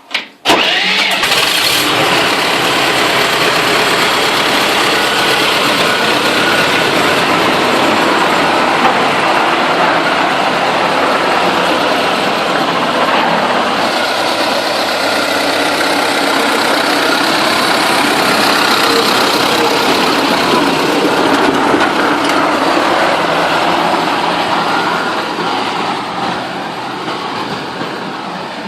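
T-40 tractor's air-cooled four-cylinder diesel starting up and then running steadily, a little quieter near the end.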